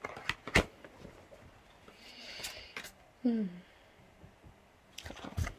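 A woman breathing softly, with one short falling hum about three seconds in and a few small clicks at the start and near the end.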